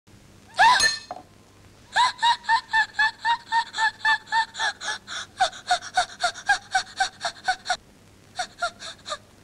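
A woman's sharp gasp, then a long run of rapid, high-pitched staccato giggles at about four a second, which break off briefly and return as four more near the end.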